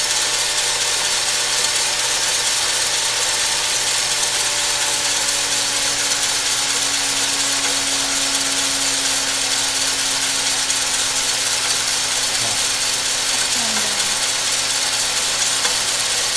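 Heat gun's blower running steadily with a loud hiss of hot air, over a low steady hum from the bread machine's motor turning the paddle through the roasting coffee beans.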